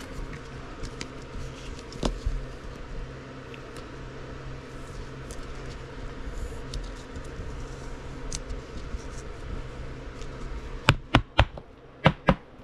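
Trading cards being handled over a steady low hum, with faint small ticks, then five sharp clicks or taps in two quick groups near the end.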